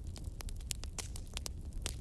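Fire crackling: a quick, irregular run of sharp pops and snaps over a low, steady rumble.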